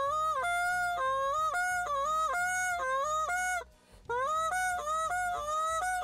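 Short reed goose call blown with steady air, its note repeatedly breaking over to a higher pitch and dropping back, about three times a second, with a brief pause a little past halfway. A beginner's training drill for breaking the call over; it does not sound like a real goose.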